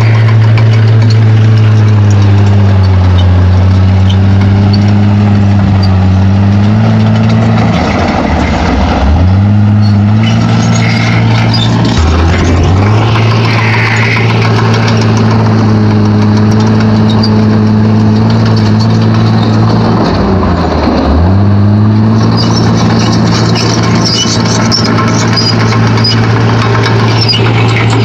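Komatsu D31P bulldozer's diesel engine working hard under load. Its pitch sags and recovers three times, about a third of the way in, near halfway and about three quarters through, as the blade takes up load. A rough scraping and clattering noise runs over it.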